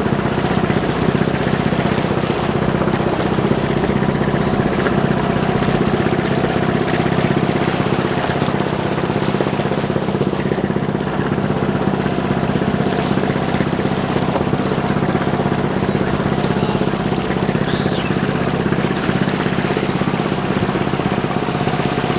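Motor boat's engine running steadily at cruising speed, a constant low hum, with water rushing and splashing along the hull.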